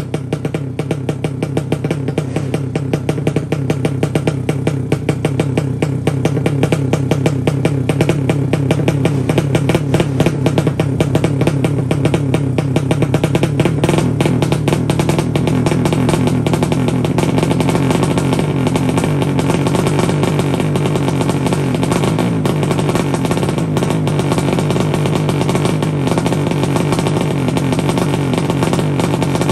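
A 200 cc horizontal-cylinder ('sleep engine') drag-racing motorcycle engine held running at the start line. Its revs waver as the throttle is worked, and it gets louder over the first several seconds, then holds at a steady high rev.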